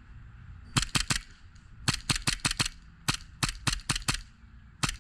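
Airsoft gun firing sharp single shots in quick strings of three to six, about five shots a second, with short pauses between strings.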